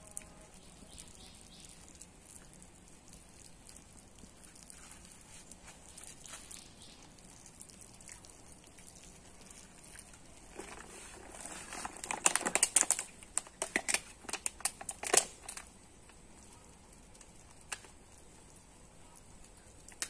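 Thin plastic mineral-water bottle crinkling and crackling in a hand for about five seconds, starting about halfway through, in a dense run of sharp clicks.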